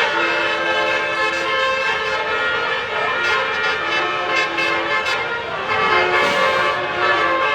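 Bus "telolet basuri" multi-trumpet air horn playing a tune: several horn tones sounding together, held notes switching to new pitches every second or so.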